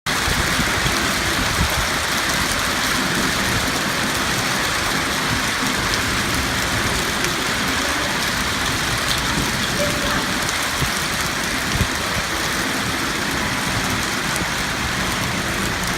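Hailstorm: hail and heavy rain pelting down on hard surfaces, a dense steady rattle with a few louder single hits.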